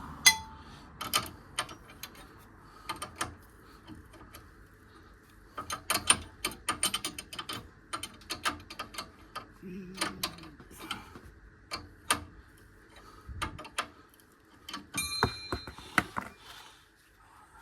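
Metal clicks and clinks of a spanner working a nut on a car's front suspension, coming in irregular runs, quickest about six to nine seconds in, with a short ringing clink of metal near the end.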